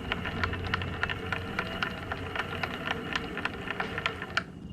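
Onsra Black Carve electric skateboard's belt-drive motors spinning with a low hum and a rapid, uneven clicking, about six clicks a second, which stops shortly before the end. The clicking is the fault the owner is chasing, which he later traces to the left motor.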